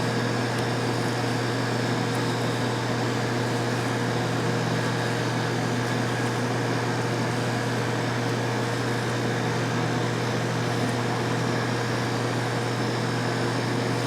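Steady mechanical hum, unchanging throughout, with a strong low drone and a few fixed higher tones, like a running fan or air-conditioning unit.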